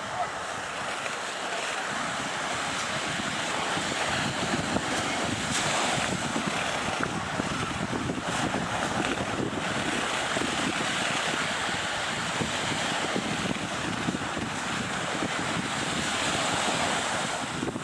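Steady rushing noise of a distant Boeing 757's jet engines on approach with its gear down, mixed with wind on the microphone; it swells slightly a few seconds in.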